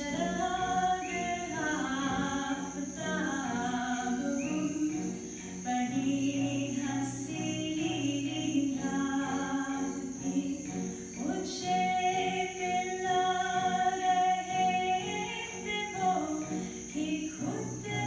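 A slow waltz-like song with a woman singing the melody and more than one voice line sounding at once, over a steady high tone.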